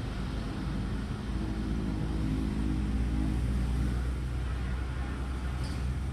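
Low engine rumble with a steady droning hum that swells for a few seconds and then eases off.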